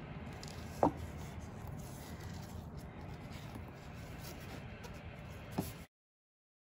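Quiet room noise with two short clicks, one about a second in and one near the end, then the sound cuts off to dead silence.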